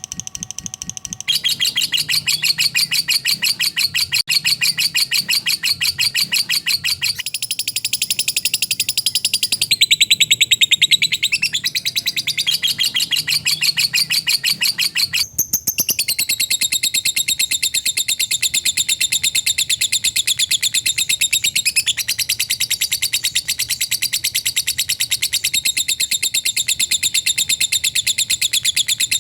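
Lovebird's long 'ngekek' song: a fast, tightly packed, unbroken high-pitched chatter that runs on without pause. Its tone shifts abruptly a few times.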